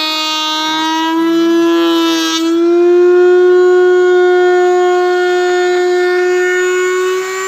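Table-mounted wood router running with a steady high whine while a board is fed past the bit, with cutting noise over the top. About two and a half seconds in, the cutting noise stops and the motor's pitch rises a little as it spins free.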